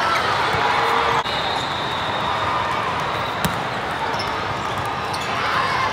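Volleyball rally in a vast tournament hall: a steady, echoing din of many courts in play, with ball hits and short squeaks of court shoes. One sharp ball contact stands out about three and a half seconds in.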